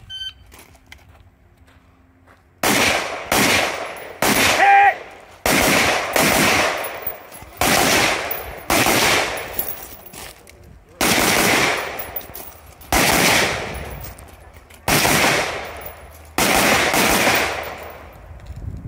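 Shotgun fired about a dozen times at a steady pace, shots roughly one to two seconds apart, beginning about two and a half seconds in after a faint timer beep. A short ringing note follows one of the early shots.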